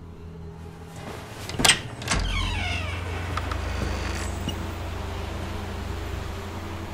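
Door lock and latch clicking twice as the door is unlocked, a short falling creak as it swings open, over a low steady hum.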